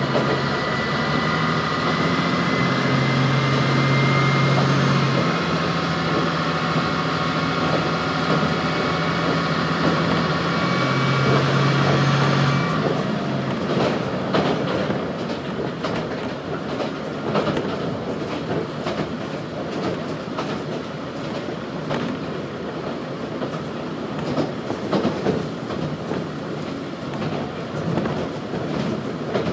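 Inside a Nagaragawa Railway diesel railcar on the move. The diesel engine runs under power with a steady tonal note, which drops away abruptly about twelve seconds in. The car then coasts with a running rumble and wheels clicking over the rail joints.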